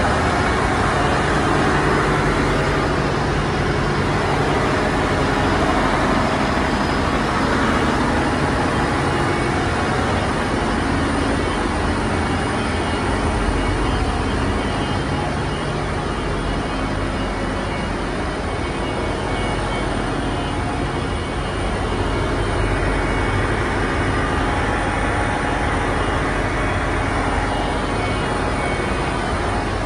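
Ship's engine-room machinery running: a loud, steady drone with a low hum underneath.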